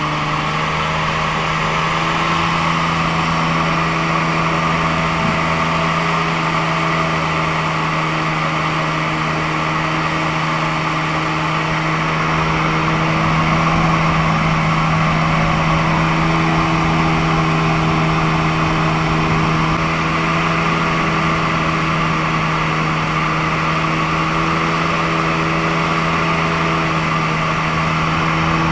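Airboat engine and air propeller running steadily under way, a loud continuous drone holding one steady pitch.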